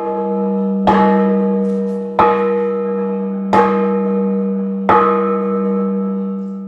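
Large bronze church bell struck four times, about once every 1.3 seconds, each blow ringing on with a steady low hum and several higher overtones that fade slowly between strikes.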